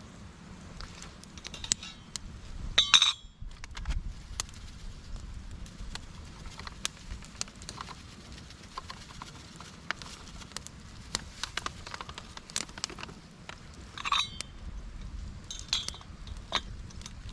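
Campfire crackling and popping with many scattered snaps. Cook gear is handled with a few metallic clinks about three seconds in and twice near the end.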